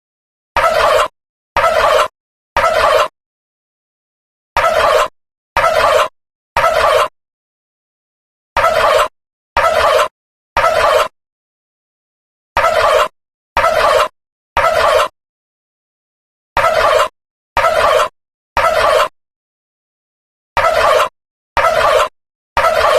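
A short turkey gobble sound effect repeated in the code-3 temporal fire-alarm pattern: three gobbles about a second apart, then a pause, the group repeating every four seconds, six times over.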